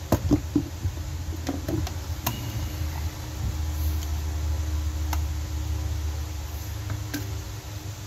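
A few light knocks and taps from handling against a plywood trailer wall, over a steady low hum that swells in the middle.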